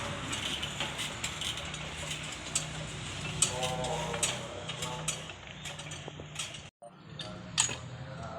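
Well-drilling machine running with a steady low hum, with repeated metallic clicks and clanks from the drilling gear. The sound drops out for an instant about seven seconds in.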